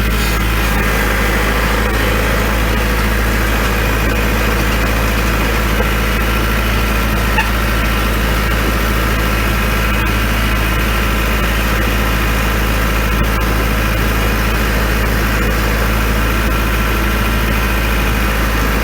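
Kubota L4701 tractor's four-cylinder diesel engine running at a steady speed while the tractor drives along, carrying a heavy burl on the loader. The drone holds even, with no change in pitch or loudness.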